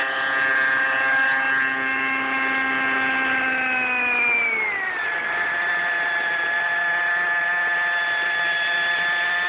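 Nitro T-Rex 600 RC helicopter's engine and main rotor running at a steady high speed on the ground, then falling in pitch about four to five seconds in and settling into a steady lower speed as it winds down.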